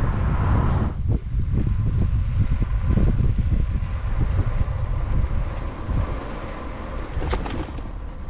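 Wind buffeting the microphone of a bicycle on the move, a steady low rumble with scattered short knocks from the ride; the rumble eases somewhat after about five seconds.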